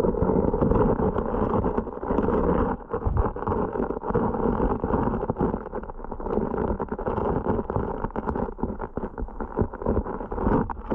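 Muffled rush of stream water heard from underwater, through the camera's housing, with many small clicks and knocks mixed in.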